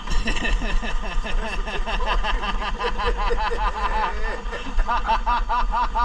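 Laughter: quick, high-pitched bursts repeated about four times a second, over a steady low hum.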